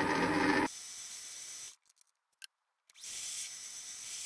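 Mini lathe cutting an aluminium part: a louder cutting noise for under a second, then the spindle running with a steady high hiss and faint whine. About two seconds in the sound drops to near silence for a second or so, with one small click, then the running hiss returns.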